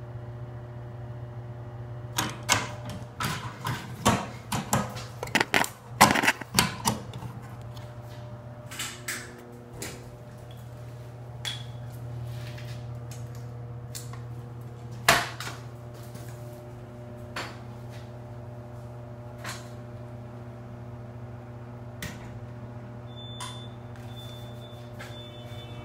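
A steady low hum runs underneath a flurry of sharp clicks and knocks about two to seven seconds in, followed by scattered single clicks. A faint high steady tone is heard near the end.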